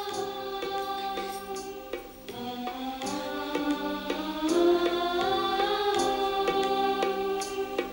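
Dramatic background music: sustained choir-like voices holding long, slowly gliding notes, with occasional percussion strikes.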